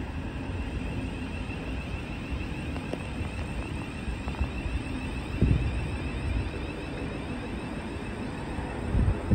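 Thameslink Class 700 electric multiple unit pulling out of the platform: a steady running noise with a faint electric traction whine. Low wind thumps on the microphone about five and a half seconds in and again near the end.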